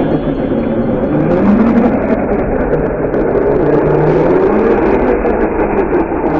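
Kyosho Fazer Chevelle electric RC car driving across concrete: a steady running and whirring sound from the motor and drivetrain, its pitch rising and falling with the throttle.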